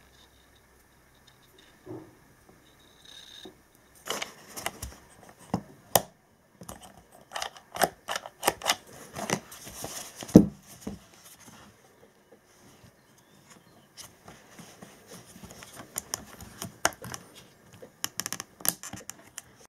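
Irregular clicks, taps and knocks of hard plastic parts being handled: a cordless drill's rotation switch lever being fitted into the opened housing at the trigger switch. The loudest is a single knock about ten seconds in, with a quieter spell just after it.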